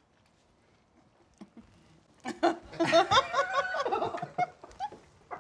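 Quiet for about two seconds, then a burst of laughter lasting about two seconds that fades out near the end.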